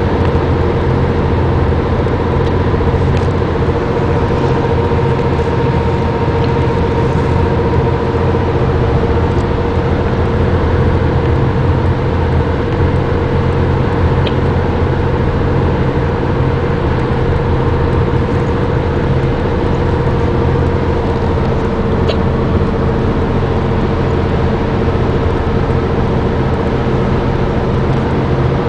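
Steady engine and road noise inside the cabin of a moving car: a constant low rumble with a steady droning tone.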